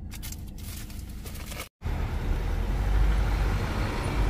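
A camper van driving, heard from inside the cab: steady low engine and road rumble starting suddenly about two seconds in, after a brief quieter stretch.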